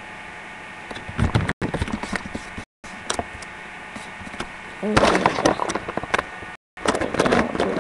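Heavily crackling, distorted audio with stretches of a voice breaking through. It cuts out completely three times for a moment.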